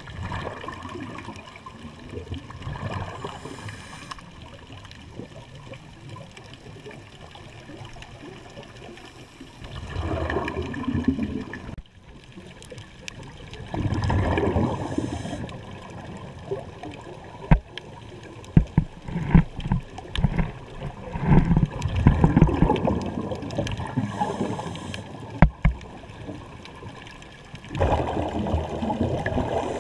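Scuba diver's breathing recorded underwater: surges of exhaled bubbles from the regulator gurgling and rumbling every few seconds over a steady low water hiss, choppiest in the second half with many sharp bubble pops.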